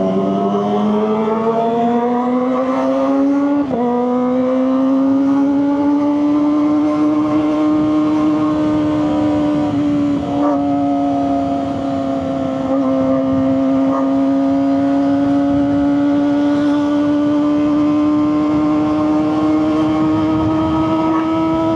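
Kawasaki ZX-25RR's 250 cc inline four, with a Leovince GP Corsa Evo Short exhaust, pulling hard at high revs. The pitch rises, breaks for a quick gearshift about four seconds in, then holds steady at high revs and creeps slowly upward.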